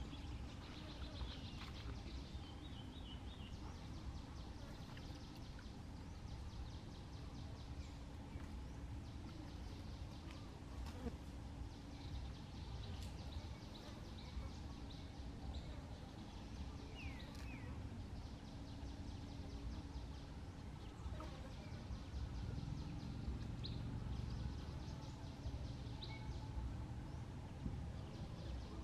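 Faint outdoor ambience: a steady low rumble with a faint hum, a high fizzing haze, and a few short high chirps, two of them together a little past halfway.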